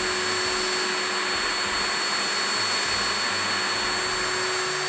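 Cordless drill/driver running at a steady high speed with a constant whine as it drives a screw through a pine stool leg into the support piece, stopping abruptly near the end.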